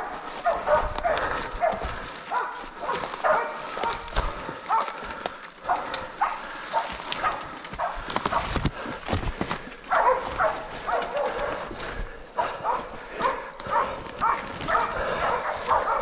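Bailing dogs barking over and over, two to three barks a second, the bay-up that signals they are holding a wild boar. Footsteps and crashing through leaf litter and brush are heard alongside.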